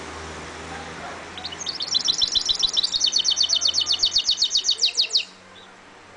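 Caged goldfinch mule (a goldfinch × canary hybrid) singing one rapid trill of about eight notes a second, lasting about four seconds and breaking off sharply.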